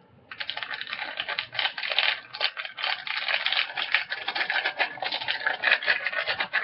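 A Shakeology powder packet being shaken out over a blender: rapid, continuous crinkling and tapping of the packet as the powder is emptied in.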